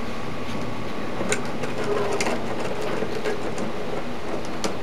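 Nut driver turning the screw of the hose clamp that holds a copper-wire tree's trunk, giving a few sharp metallic clicks over a steady hiss.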